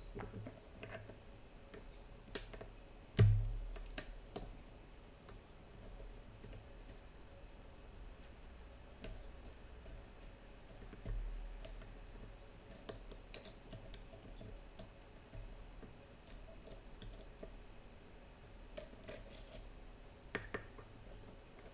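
Faint, scattered metallic clicks and light scrapes of a pick probing the pins of a 7-pin tubular lock while the core is held under tension, with a dull thump about three seconds in and a softer one near the middle.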